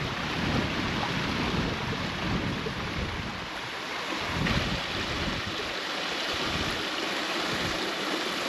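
Wind blowing across the microphone: a steady rushing hiss with uneven low buffeting that surges and drops.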